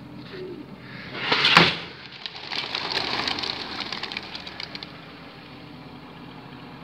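Flock of racing pigeons released from a truck's cages taking off: a loud rush about a second and a half in, then a clatter of many wings beating for a couple of seconds that fades as the birds fly off, over a steady low engine hum.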